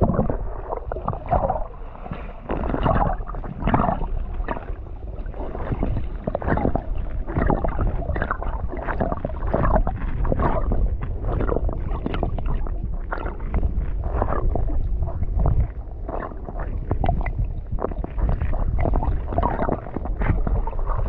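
Muffled underwater sound from a camera held just below the surface: water sloshing and gurgling, with a steady scatter of small clicks and knocks.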